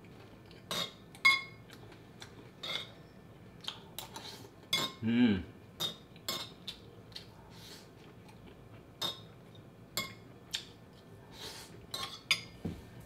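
Cutlery clinking against a plate or bowl while fried rice is eaten: a string of separate sharp clinks with a short ring, irregularly spaced. About five seconds in there is a brief vocal sound that falls in pitch.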